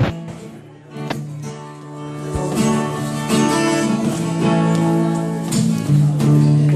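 Instrumental song intro on strummed acoustic guitar, building up over the first couple of seconds.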